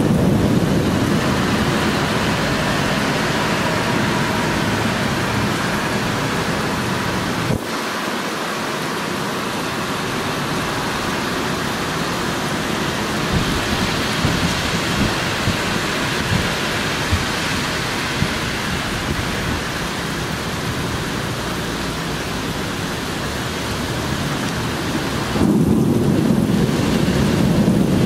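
Heavy rain falling steadily in a thunderstorm, with a low rolling rumble of thunder at the start and again near the end.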